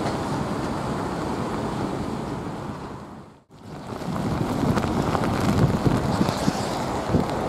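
Strong wind buffeting the microphone over the steady jet noise of an airliner on the runway. The sound drops out briefly at an edit about three and a half seconds in, then comes back as gusty wind over the louder, uneven rumble of a Boeing 777-200's engines on a crosswind landing approach.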